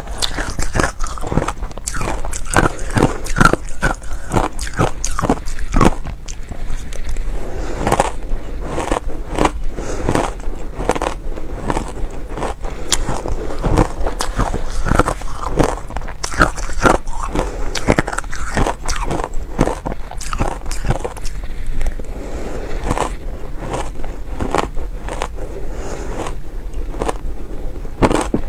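Shaved ice being bitten and chewed close to the microphone: a dense, uneven run of crisp, powdery clicks and crunches. The playback is sped up by a quarter.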